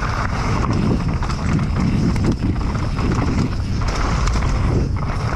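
Specialized Demo downhill mountain bike rattling and clattering over rough trail ground, with many small irregular knocks and a steady rushing noise.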